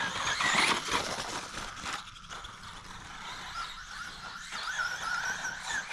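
Traxxas Bandit RC buggy with a brushless motor driving over rough dirt: a thin motor whine wavers in pitch with the throttle, over the scrabble of tyres and chassis rattle, with a louder rushing burst about half a second in.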